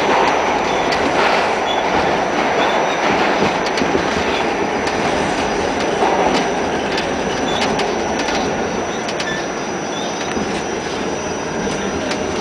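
Pullman Standard R46 subway car running through the tunnel and into a station: a dense steady rumble and rush with scattered sharp clicks of wheels over rail joints, easing gradually quieter as the train slows for the platform.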